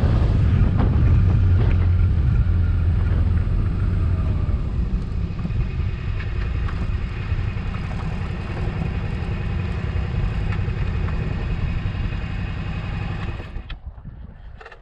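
Suzuki V-Strom motorcycle engine running with a low rumble of wind and road noise, slowly getting quieter as the bike slows, then dropping off sharply about a second before the end as it comes to a stop.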